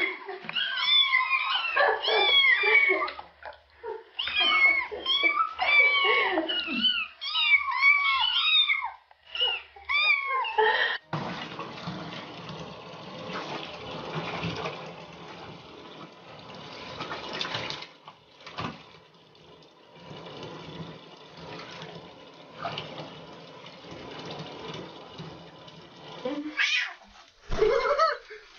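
A litter of young kittens mewing over one another, many short high cries rising and falling, stopping abruptly about eleven seconds in. Then a steady rush of water in a bathtub, with a brief louder sound near the end.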